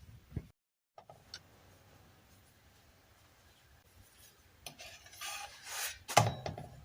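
Kitchen work sounds: a rubbing scrape of about a second, then a sharp clack of a dish or utensil being set down.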